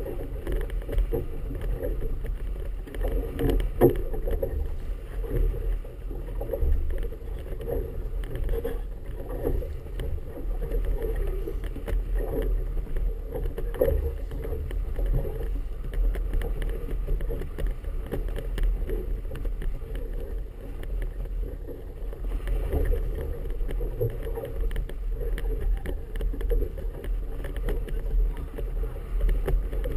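Wind buffeting and choppy water slapping against a small boat's hull, muffled and low, with an uneven, gusty flutter.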